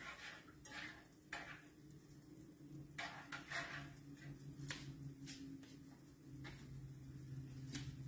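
A metal utensil clinking and scraping against a skillet while scrambling eggs, as about ten light, irregular clicks.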